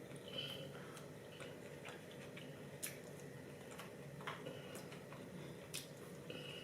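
Faint eating sounds: quiet chewing with a few scattered small clicks and taps from handling the food.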